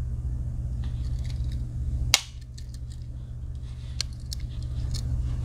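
Small metallic clicks from a Victorinox Huntsman Swiss Army knife being handled. A sharp snap about two seconds in, typical of a blade closing against its backspring, is followed by a few lighter clicks, all over a steady low hum.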